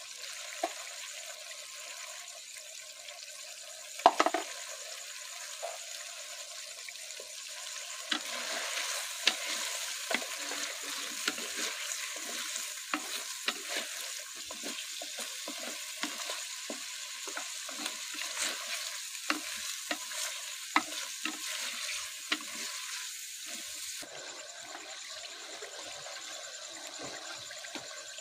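Food sizzling as it fries in a karahi, with a steady hiss. Through the middle, a spoon stirs and scrapes against the pan in quick, uneven clinks. There is one louder knock about four seconds in.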